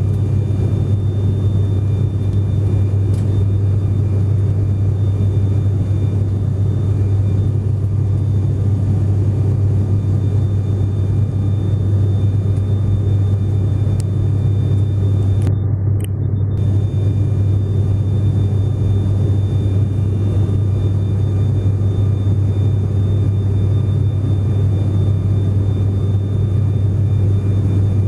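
Steady low drone of an aircraft in flight heard from inside the cabin: engine and airflow noise, unchanging throughout.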